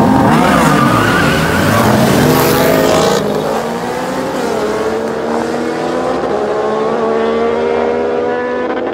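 A Jeep SRT and a Ford Mustang launching side by side in a street drag race: engines revving hard with tyre skid noise for the first three seconds, then both pulling away down the street, their engine note climbing steadily in pitch as they accelerate.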